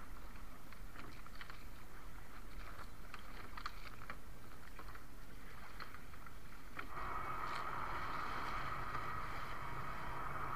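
Water and wind around a small wooden fishing canoe, with scattered light clicks and knocks as a gill net is hauled in over the side. About seven seconds in, a steady mechanical hum sets in suddenly and continues.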